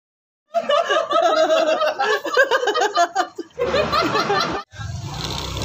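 A man laughing hard in rapid, choppy cackles for about three seconds. After a short break, a steady vehicle running noise starts near the end.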